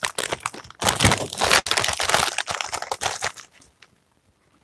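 Plastic chip bag crinkling as it is pulled open and handled, a dense crackle that stops about three and a half seconds in.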